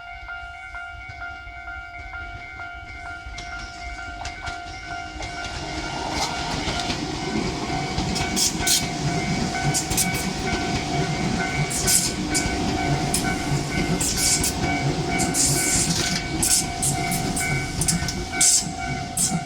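Japanese level-crossing alarm ringing steadily throughout. From about five seconds in, a Tobu 200 series limited express electric train rolls in toward the station, its wheels rumbling louder over the rails with sharp high-pitched clicks and squeals.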